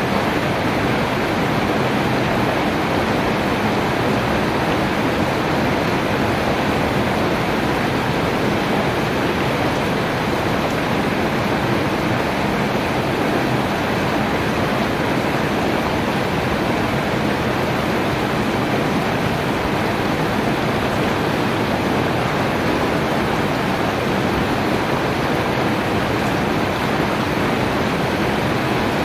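Steady rainfall, an even hiss of rain that does not change.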